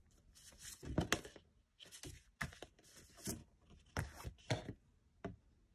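Stiff cardboard flashcards being handled: a run of short, irregular rustles and light clacks as one fold-out card set is put down on the table and another is picked up.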